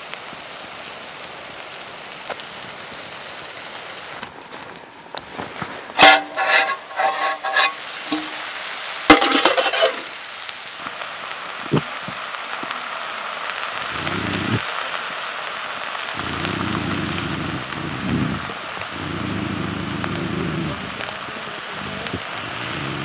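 Trout fillets and hash browns sizzling in a frying pan, with a metal spatula and fork scraping and clinking against the pan. A cluster of loud ringing clinks comes about six seconds in, and another about nine seconds in.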